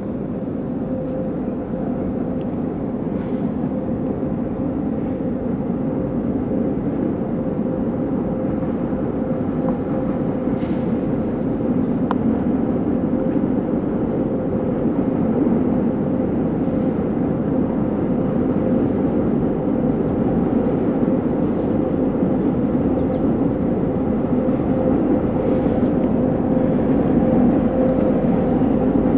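Diesel freight locomotives working a train across a high steel railway viaduct: a steady distant engine drone with a held hum, slowly growing louder as the train comes on.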